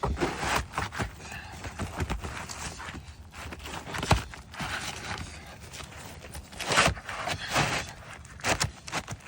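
Hammer knocking and scraping on asphalt roof shingles, in irregular taps with a few harder blows about four and seven seconds in.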